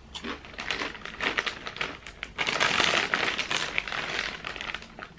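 Chewing crunchy Pom-Bär potato snacks and the foil snack bag crinkling: a dense run of crackles and crunches, loudest in the middle.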